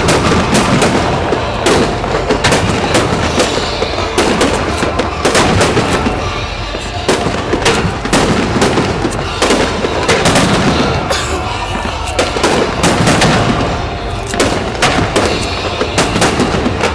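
Aerial firework shells bursting in quick, irregular succession: many sharp bangs, several a second at times and often overlapping, over a steady low rumble.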